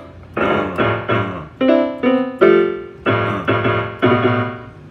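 Piano backing music: keyboard chords struck one after another, each note ringing and fading before the next.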